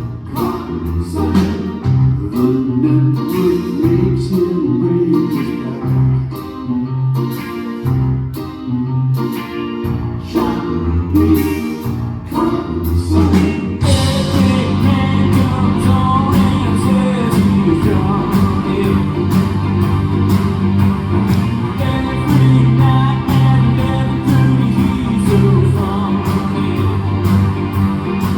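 Live rock band playing a song, with singing and guitar; about halfway in, the sound turns fuller and denser.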